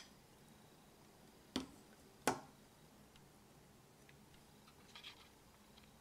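Near-quiet room with two short, light clicks of tableware, a slotted steel spoon or china plate being handled, about a second and a half in and again under a second later.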